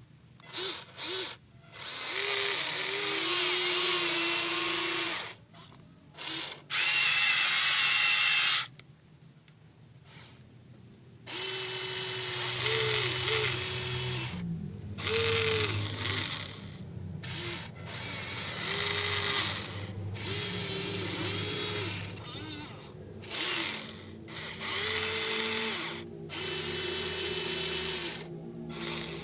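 Huina 1593 RC excavator's small electric gear motors whining in repeated bursts, starting and stopping as its controls are worked, each run lasting from under a second to several seconds.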